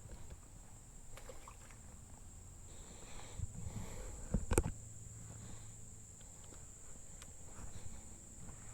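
Steady high-pitched drone of insects in the summer vegetation, with scattered rustling and handling noises and one sharp knock about four and a half seconds in.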